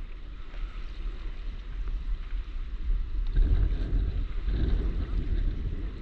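Wind buffeting the microphone in a steady low rumble, with water sloshing around a stand-up paddleboard on the open sea; the noise swells louder for a couple of seconds past the middle.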